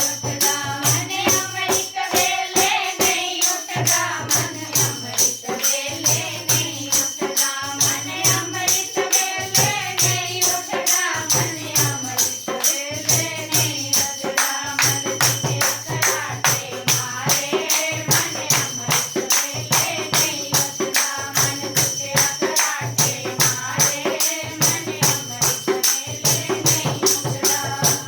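A group singing a Hindi devotional bhajan in kirtan style over a fast, even beat of jingling hand percussion such as a tambourine. The music stops abruptly near the end.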